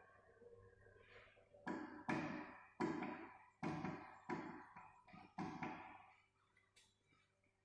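A series of about seven sharp knocks, each dying away quickly, coming roughly every half to three-quarters of a second from under two seconds in until past the middle, over a faint steady hum.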